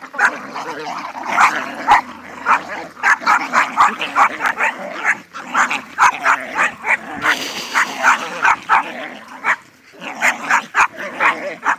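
Dogs barking and yipping in quick runs of short, sharp barks, a few a second with a brief lull near the end: excited play barking during a game of tug-of-war with a rope toy.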